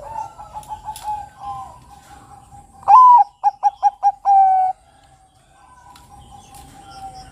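Zebra dove (perkutut) cooing: softer repeated coo notes in the first two seconds, then a loud phrase about three seconds in: one longer arched opening note, four quick short notes and a held final note.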